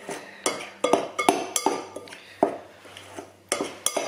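Table knife cutting through crumbly pie dough in a glass mixing bowl, the blade clinking against the glass in a string of irregular sharp taps.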